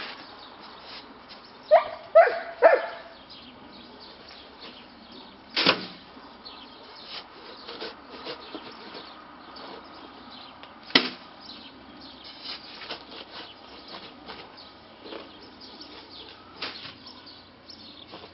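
A shovel scraping and scooping dry concrete mix in a metal wheelbarrow, its blade knocking sharply against the tray twice, about six and eleven seconds in. About two seconds in, an animal gives three short calls in quick succession, the loudest sound here.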